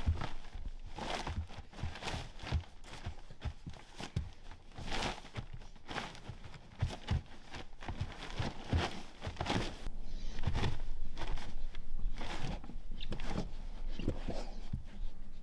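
Pregnant Weimaraner digging and scratching at fleece blankets, with her claws rasping and the bedding rustling in quick irregular strokes. This is nesting ahead of whelping.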